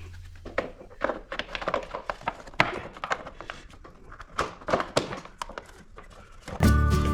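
Irregular clicks and light knocks, like tools and metal parts being handled during hand work on a motorcycle. Background music comes back in near the end.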